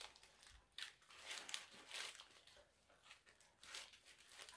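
Faint crinkling of paper sandwich wrappers and crunchy bites and chewing of fried chicken sandwiches, in short scattered bursts.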